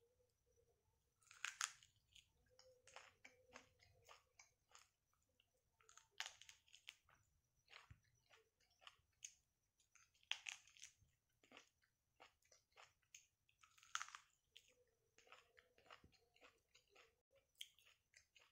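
Biting into corn on the cob and chewing the kernels. Four crisp, crunchy bites come roughly four seconds apart, with soft chewing clicks in between.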